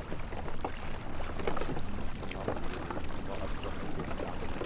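Water sloshing and splashing irregularly as several hunters wade through a shallow pond, picking up floating duck decoys.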